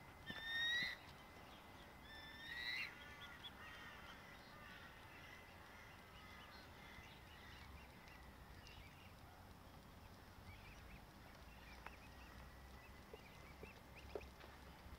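Bird calls: two loud calls, each rising at the end, in the first three seconds, then faint scattered chirps over quiet outdoor background.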